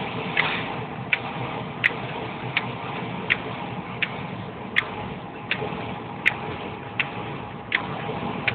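Windshield wipers running fast, a sharp click at the end of each sweep about one and a half times a second, over steady road and engine noise inside the car.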